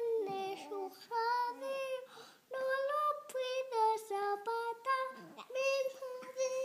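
A young girl singing to a baby in a high child's voice: a run of short sung notes with a few longer held ones.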